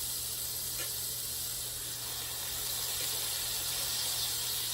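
T-bone steak sizzling in a hot pan: a steady, even hiss.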